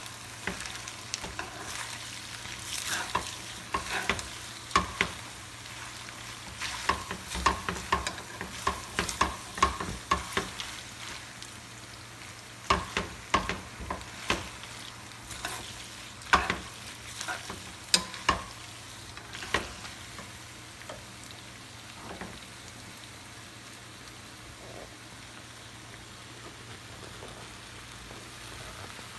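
Food sizzling in a frying pan while it is stirred, a utensil clicking and scraping against the pan over and over for the first two-thirds, after which mostly the steady sizzle remains.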